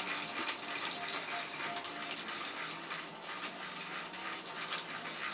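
Irregular light metallic clicks and clinks of parts and tools being handled during an engine installation, over a faint steady hum.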